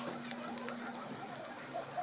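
Sardine-and-egg omelet frying in a pan: a steady crackling sizzle of hot oil, with a faint steady hum underneath.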